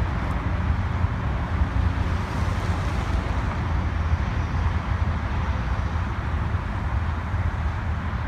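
Steady wind buffeting the microphone outdoors, a low rumble with a hiss of outdoor noise above it.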